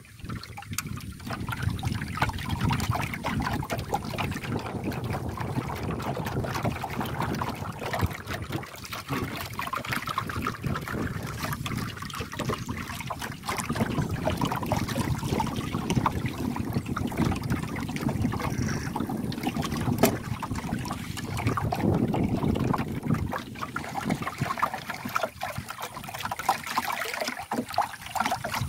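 Water lapping against a small wooden boat's hull, with wind on the microphone, steady throughout. A single sharp click comes about twenty seconds in.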